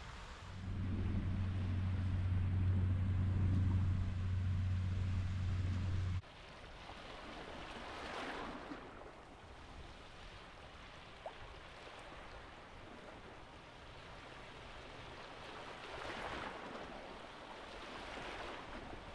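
Small waves washing in over a shallow sandy shore, breaking in two or three swishes. For the first six seconds a loud, steady low rumble runs underneath, then cuts off suddenly.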